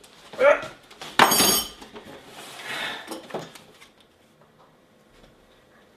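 A CRT television set is put down on a table with a sudden heavy clunk and a clatter of the dishes on it, just after a brief vocal sound. Some fainter scraping and clicks follow, then it goes quiet.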